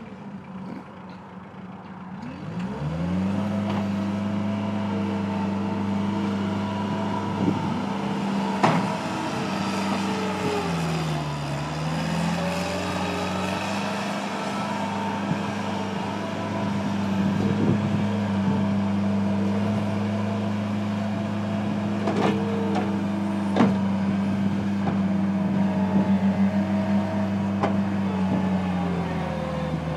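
New Holland LS160 skid steer's 46-horsepower diesel engine running. It revs up about two seconds in and holds a steady high speed, dips briefly around the middle, then comes back down near the end, with a few sharp knocks along the way.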